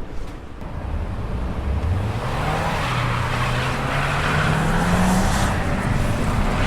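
Motor vehicle accelerating along the street, its engine note rising steadily over several seconds while tyre noise grows louder.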